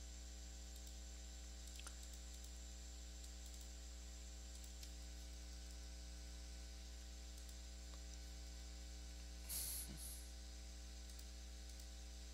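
Faint steady electrical mains hum with light hiss from the recording chain, and a brief soft hiss about ten seconds in.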